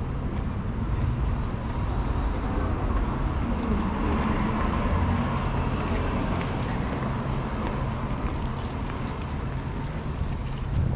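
Road traffic: a steady rumble of vehicle engines and tyres from cars passing close by, swelling a little in loudness a couple of seconds in.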